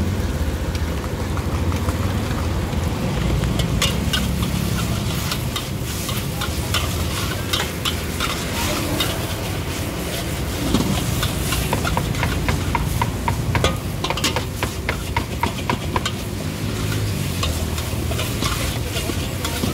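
A metal ladle scraping and clattering against a wok as flat rice noodles are stir-fried, with sizzling and a steady low rumble underneath. The clinks come quick and sharp in a run through the middle.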